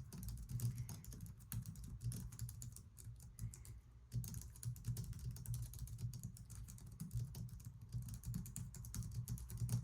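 Fast, continuous typing on a Logitech MX Keys scissor-switch keyboard: a dense run of soft key taps, with a brief pause about four seconds in.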